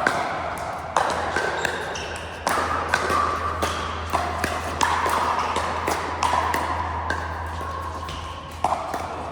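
Pickleball paddles hitting a plastic ball in a rally: sharp pops at irregular intervals, roughly one every second or so, over a steady low hum.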